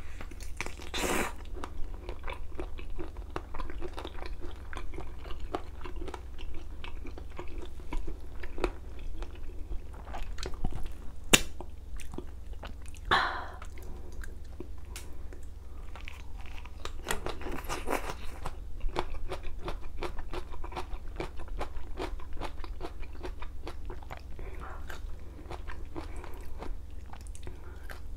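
Close-miked chewing and biting of spicy sauced bone-in chicken feet: wet mouth sounds and many small sharp clicks, with one loud sharp click about 11 seconds in.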